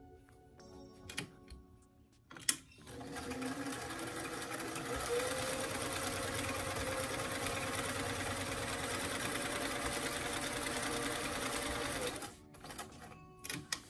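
Vintage cabinet sewing machine sewing a straight top-stitch, running at a steady speed for about nine seconds and stopping about a second before the end. Before it starts there are a few light clicks and one sharp click as the work is set under the presser foot.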